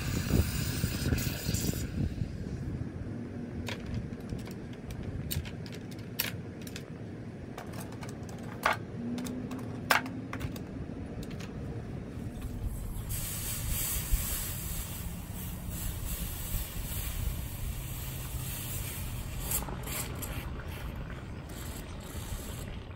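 Hot metal castings quenched in a plastic tub of water: hissing and sizzling, with clinks of steel tongs and metal against metal, two louder clinks near the middle. From a little past halfway, a steady sizzle as the hot plaster mold with its casting is quenched.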